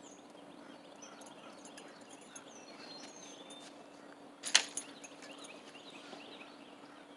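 Faint outdoor background with a few soft bird chirps and a steady low hum, broken by one sharp click about four and a half seconds in.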